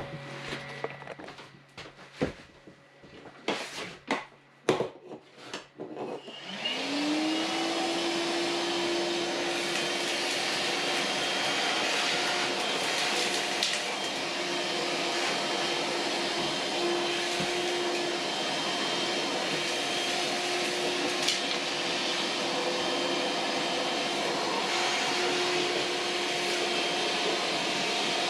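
A few clicks and knocks, then about six seconds in a Milwaukee M12 Fuel cordless wet/dry shop vac starts, its motor whine rising and settling, and runs steadily on its low speed setting while vacuuming up a pile of dust and debris.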